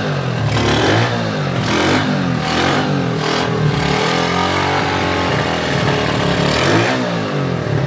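1987 Honda C90's single-cylinder four-stroke engine running while it warms up, revved in a series of quick blips and then in one slower rise and fall near the end.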